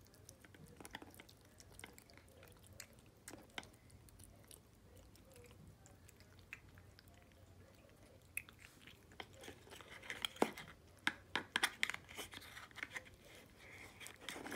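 Siamese cat chewing and licking soft wet cat food from a spoon: small wet clicks and smacks. Near the end, a plastic spoon scrapes and clicks against the plastic food tub, with a denser run of louder clicks.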